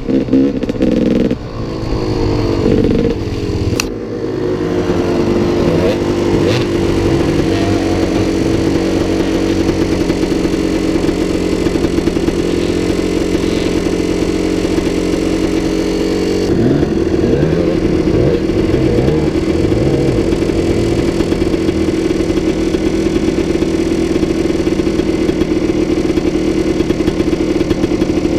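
Gas Gas EC 250 enduro motorcycle engine running at a fairly steady pitch, with a few small rises and falls in revs in the first seconds and a slight change in tone about halfway through.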